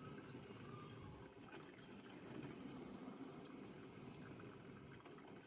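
KHIND CM1215 drip coffee maker brewing, faint gurgling and dripping of hot water.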